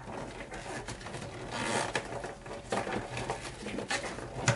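Electrical cable being pushed by gloved hands through a cable connector into a breaker panel: irregular rubbing and scraping of the cable and wires, with a few light clicks against the panel, the sharpest near the end.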